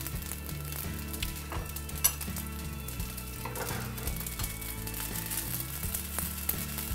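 Cooked rice sizzling as it fries in a nonstick frying pan, with a plastic spatula scraping, stirring and pressing it against the pan; a sharp click about two seconds in. The rice is being fried into crispy rice (cơm cháy).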